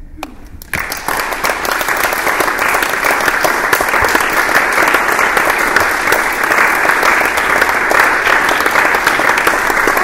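Audience applauding at the end of a dance performance, breaking out less than a second in and then holding steady.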